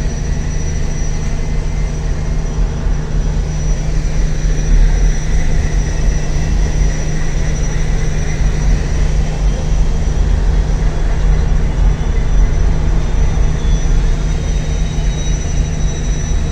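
Steady low rumble of a passenger ferry's engines heard from the open deck, with a faint, steady high whine above it.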